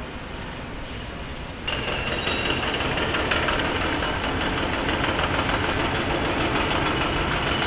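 Urban construction-site and street noise dominated by a running engine, which jumps suddenly louder a little under two seconds in and stays loud, with a faint high whine over it.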